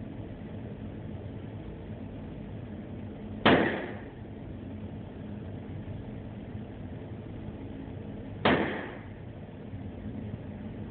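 Two gunshots about five seconds apart, each a sharp crack with a short fading tail, over a steady low background noise.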